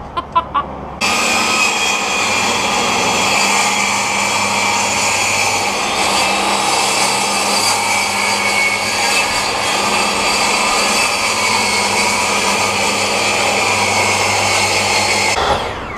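Table saw running steadily while cutting a groove along a length of pine rail. It comes in abruptly about a second in and stops just before the end, with a few sharp clicks before it starts.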